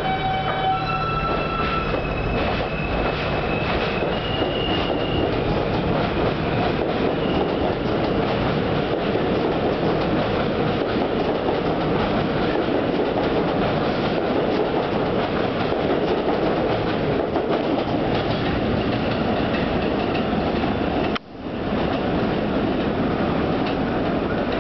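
R160 subway train pulling out of the station and passing at speed: in the first few seconds its propulsion gives a short series of stepped whining tones, then the cars rumble and clatter over the rail joints, with some wheel squeal. The sound cuts out briefly about 21 seconds in.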